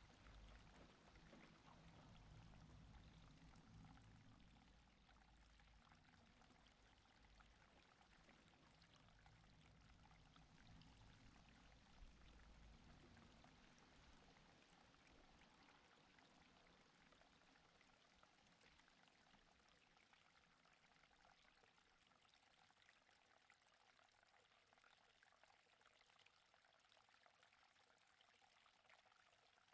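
Near silence: a faint, steady outdoor hiss, with a low rumble that fades out over the first dozen seconds.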